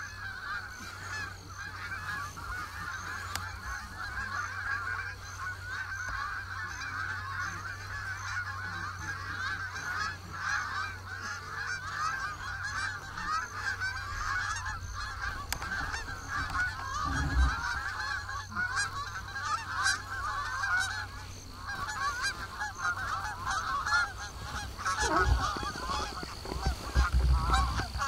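A flock of Canada geese honking continuously as they fly in to land, many birds calling over one another. A few low thumps come in partway through and near the end.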